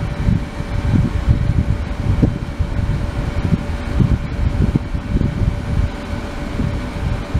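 Ultrasonic cleaning tank in operation: a steady machine hum with a thin constant tone, over an uneven low churning rumble.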